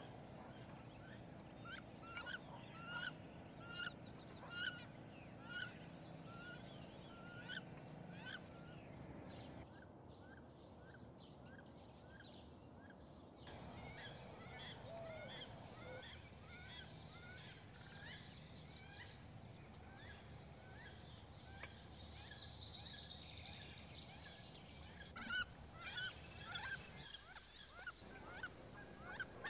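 Wood ducks calling: a series of short, rising calls about one or two a second, breaking off for a few seconds midway and starting again near the end.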